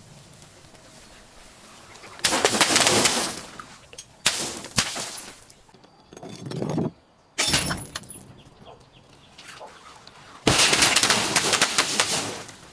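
A series of crushing, crunching bursts as objects are broken, with a sharp crack about four seconds in; the last burst, near the end, is the longest and loudest.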